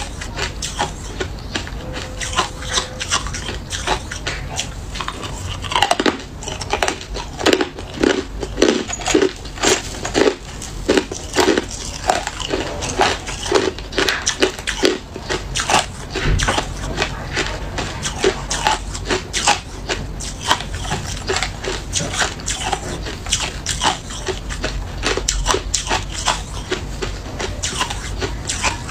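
Hard clear ice chunks being bitten and chewed, a dense, irregular run of sharp cracks and crunches, loudest in the middle stretch.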